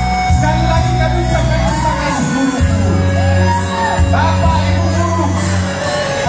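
Song with a sung melody over sustained bass chords and a steady beat.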